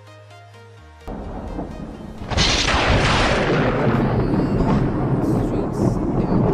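Short electronic music that cuts off about a second in, giving way to a stormy rumble. Just over two seconds in, a lightning strike brings a sudden, loud crack of thunder, which carries on as a long, heavy rumble.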